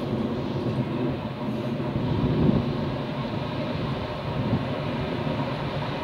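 Pair of Class 86 electric locomotives approaching at the head of a container freight train: a steady rumble of locomotives and wagons running on the rails, swelling slightly about two seconds in.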